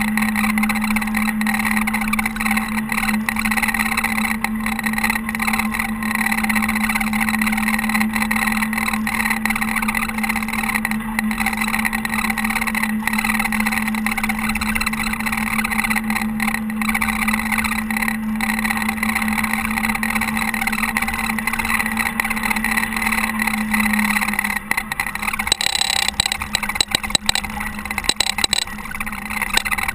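Caterpillar TH330B telehandler's diesel engine running steadily while snowplowing, with a steady low hum that drops away about 24 seconds in; irregular knocks and rattles follow near the end.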